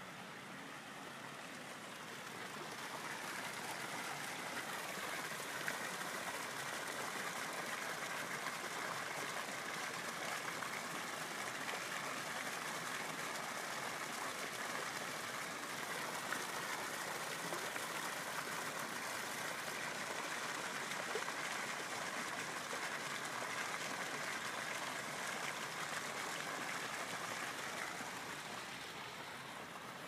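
Steady rushing hiss of underwater ambience, water noise heard through a submerged camera. It swells in over the first few seconds and fades out near the end.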